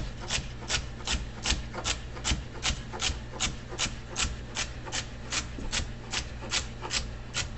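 Kitchen knife dicing celery on a wooden cutting board: a steady rhythm of sharp chops, about two to three a second.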